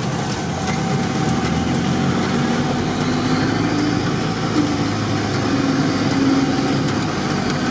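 Off-road vehicle's engine running as it drives slowly along a wet dirt track, heard from inside the cab, with steady road and body noise.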